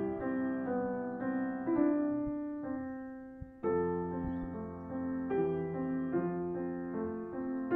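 Background piano music: a gentle melody of single sustained notes over chords, fading briefly before a new chord comes in about three and a half seconds in.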